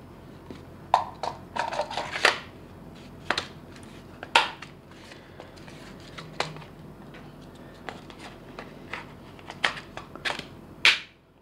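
Hard plastic airsoft M4 magazine parts being handled and knocked together on a table: irregular clicks, knocks and scrapes, with a sharper knock near the end.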